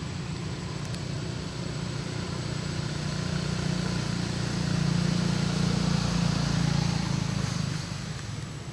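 A motor vehicle's engine running with a low steady hum that swells to its loudest about five to seven seconds in, then drops away near the end.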